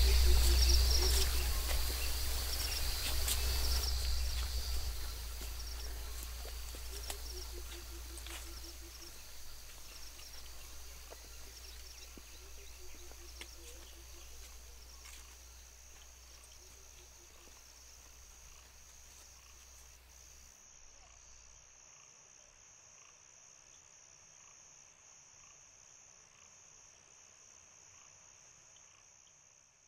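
Field-recording soundscape of frogs calling in pulsed series over a steady, high, pulsing insect trill, laid over a low rumble that fades away and cuts off about two-thirds of the way through. The whole mix fades out gradually to near silence.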